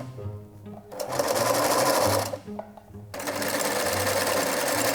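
Old Singer sewing machine stitching fabric in runs of fast, even stitches. It stops briefly just after the start and again around the middle, then runs steadily to the end.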